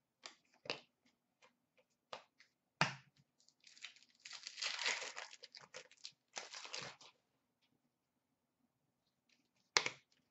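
Foil wrapper of a 2008-09 Upper Deck Series 1 hockey card pack being torn open and crinkled, after a few sharp clicks of cards being handled. The crinkling comes in two stretches in the middle, and a single sharp snap follows near the end.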